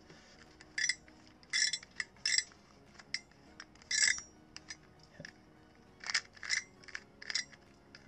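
Shengshou Master Pyraminx being turned by hand: the springs under its corners give short, springy metallic pings as the layers move, about nine times with pauses between. This is the 'horrible springy sound' that the spring-loaded corners make.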